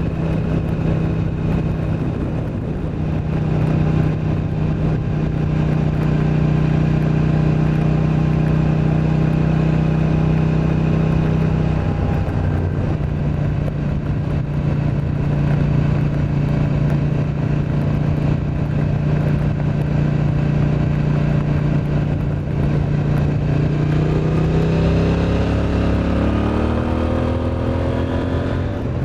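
KTM 890 Duke R's parallel-twin engine through an Akrapovic exhaust, running at a fairly steady engine speed under way, then climbing in pitch over the last few seconds as the bike accelerates.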